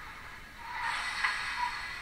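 Sound decoder of a Roco H0 model DB class 86 steam locomotive playing standing-locomotive steam sounds through its small loudspeaker: a steady hiss, with a louder burst of steam lasting about a second that begins just over half a second in.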